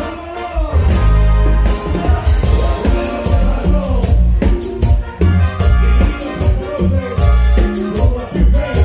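A live band playing amplified Latin dance music, with a steady drum beat, a heavy bass line and a singer's voice over it.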